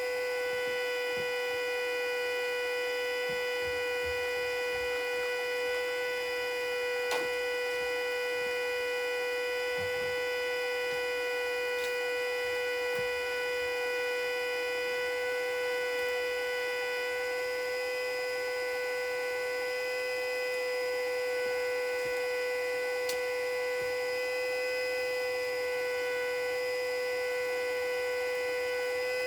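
Federal Signal Model 2A warning siren sounding its full-alert signal, a steady tone held at one pitch.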